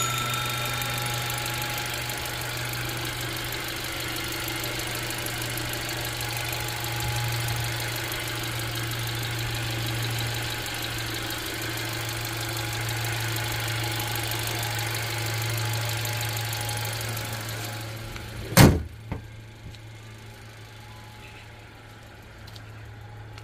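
Subaru Pleo's small four-cylinder engine idling steadily with the bonnet open. Near the end there is one loud slam, likely the bonnet being shut, after which the engine idle is quieter and duller.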